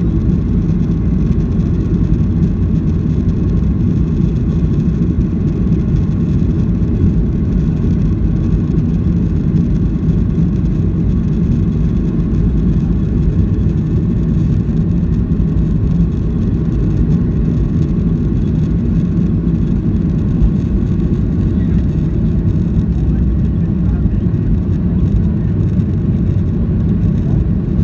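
Steady loud cabin noise of a Boeing 737-800 in flight: the deep rumble of its CFM56-7B turbofan engines and airflow, heard from a window seat, even and unchanging.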